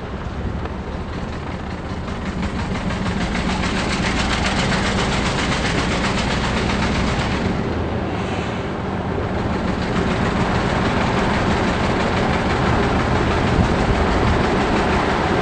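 Inside a moving car: engine and road noise while driving, getting louder over the first few seconds and again about two-thirds of the way through.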